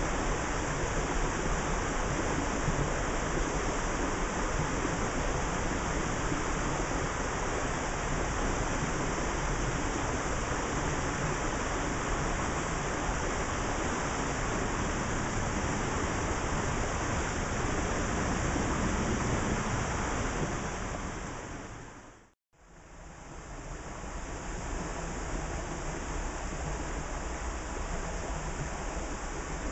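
Steady rushing of creek water flowing over stones. It fades out to silence about two-thirds of the way through and fades back in.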